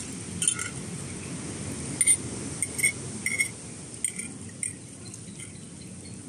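Tableware clinking: about eight short, ringing chinks of cutlery against plates or glassware, clustered around two to three and a half seconds in, over a steady low background noise.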